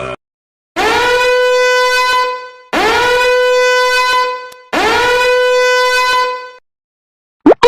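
A horn sound effect: three long blasts on one steady note, each lasting about one and a half to two seconds and sliding up into the pitch as it starts, separated by short silences.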